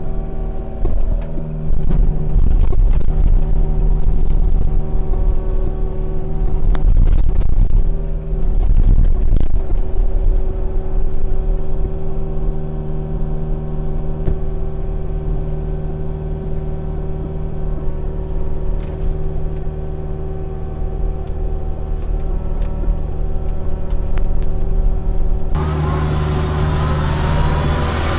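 Kubota U55-4 mini excavator's diesel engine running steadily under load as it is driven through deep mud, with louder rough surges and clatter twice early on. Near the end the sound changes suddenly to a louder, fuller engine-and-machinery sound.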